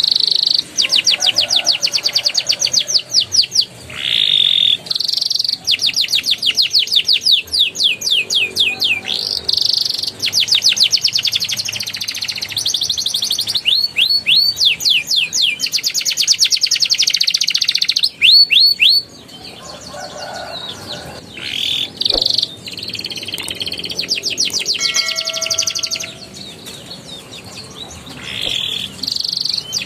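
Domestic canary singing long, fast rolling trills: rapid runs of repeated sweeping notes in phrases several seconds long, broken by brief pauses. This is a canary in full, vigorous song.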